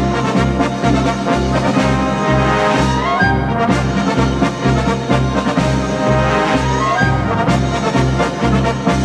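Upbeat instrumental music over a steady pulsing bass line, with a quick rising run twice, a few seconds apart.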